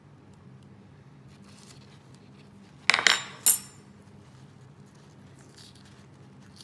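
Metal fork set down on a hard surface, clattering about three seconds in: a quick rattle of ringing strikes, then a second clink half a second later.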